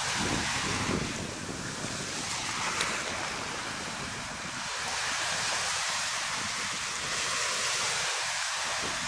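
Small sea waves washing and breaking in the shallows, with wind buffeting the microphone.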